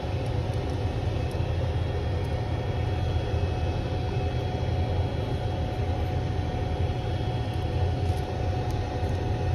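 Steady low machine hum with a faint whine above it, the constant background drone of equipment running nearby, with a few faint clicks about eight seconds in.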